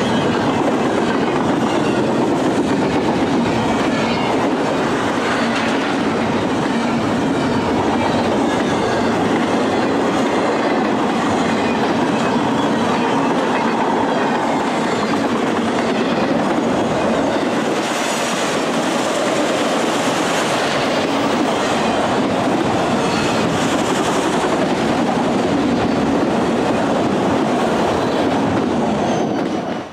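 Freight train's double-stack container well cars and then autorack cars rolling past, a loud, steady noise of steel wheels running on the rails.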